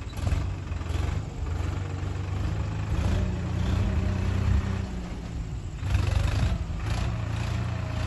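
Swaraj 963FE tractor's three-cylinder diesel engine running steadily under load as it pulls a two-bottom reversible mouldboard plough through soil. It dips briefly about five seconds in, then runs a little louder.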